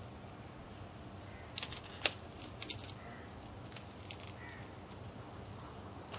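Scattered sharp clicks and taps over a steady low hum, bunched together about two seconds in with one louder click among them, then a few single clicks later.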